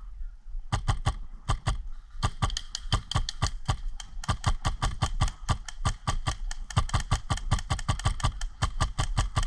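Airsoft guns firing rapid, irregular strings of sharp cracking shots, many shots a second.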